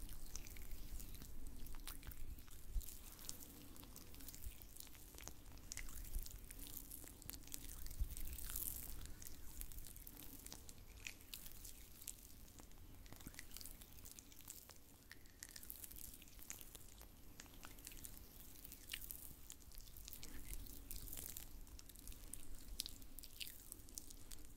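Faint ASMR oil-massage sound: oiled, gloved hands rubbing and squishing close to the microphone, in an irregular wet crackling with small clicks and soft hissy swishes.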